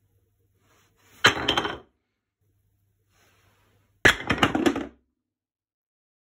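Dense hardwood boards being handled and set down on a wooden workbench: a short cluster of sharp clacks and knocks about a second in, and a longer cluster at about four seconds. A faint low hum lies under the quiet between them.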